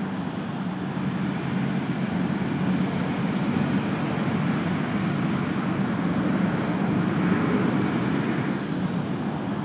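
Low, steady rumble of a passing vehicle, swelling gradually from about two seconds in and easing near the end.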